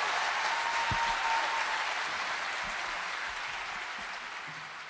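Audience applauding, slowly fading out.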